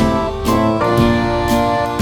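Background music: a strummed guitar tune with a steady beat.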